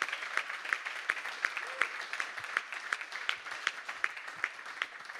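An audience applauding, with one clapper close to the microphone standing out at about three claps a second. The applause thins out near the end.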